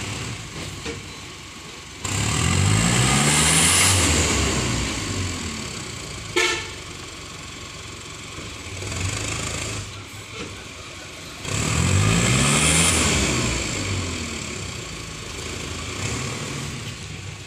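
Small diesel dump truck's engine revved up twice, rising in pitch each time, to drive the hydraulic hoist as the loaded tipper bed is raised and soil slides out. Between the revs it runs lower, with a brief sharp sound about six seconds in.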